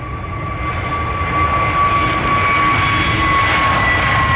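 Airbus A321neo jet engines running at high power as the airliner rolls along the runway: a rushing noise with a high whine that drifts slightly lower in pitch. It grows louder over the first second or so, then holds steady.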